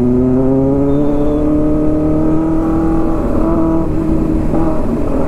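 Kawasaki Ninja ZX-6R's inline-four engine, fitted with a loud aftermarket exhaust, pulling steadily up through the revs as the bike accelerates on the road. About three seconds in, the note breaks and drops in pitch as the rider eases off, with wind and road rumble underneath.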